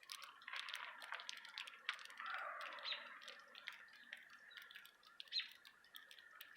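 Small birds giving a few short, high chirps among scattered faint ticks and clicks.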